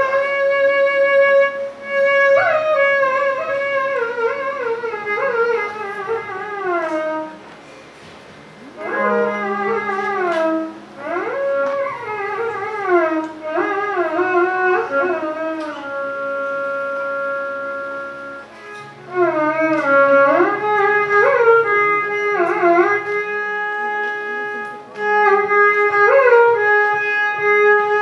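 Solo Carnatic violin in raga Saranga, playing long phrases of sliding, oscillating notes (gamakas). The playing stops briefly twice, about a third and two thirds of the way through.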